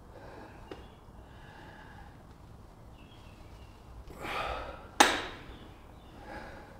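A man's forceful exhale while pressing heavy dumbbells, then a sharp metallic clink with a short ring as the iron dumbbells meet at the top of the press, and a shorter breath near the end.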